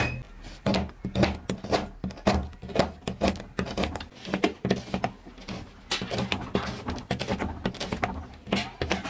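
Chef's knife chopping chocolate bars on a rubber cutting mat: a quick, uneven run of chops, about four a second, with crunching, after a sharp knock at the very start.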